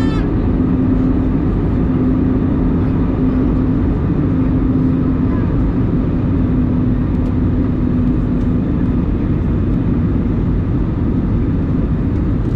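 Airbus A320 cabin noise in flight: a steady, loud rumble of engines and airflow with a low hum that fades out about three quarters of the way through.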